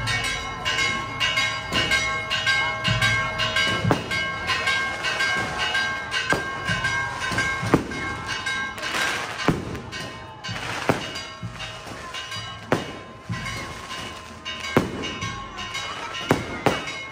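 Church bells ringing in rapid repeated strokes. From about eight seconds in, sharp bangs from fireworks are scattered among them.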